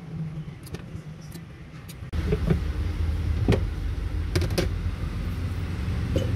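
A steady low rumble of a vehicle engine running close by, which steps up abruptly and gets louder about two seconds in. Over it come a few sharp clicks, then several distinct knocks and taps of things being handled on a counter.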